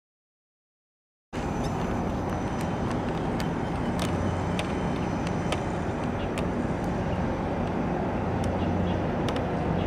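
About a second of dead silence, then a steady low rumble of outdoor harbour ambience with scattered faint ticks.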